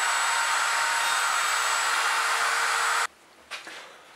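Handheld router with a pattern bit running and cutting walnut along a 3D-printed template, a steady whine on a second pass to clean up the edge. It stops abruptly about three seconds in.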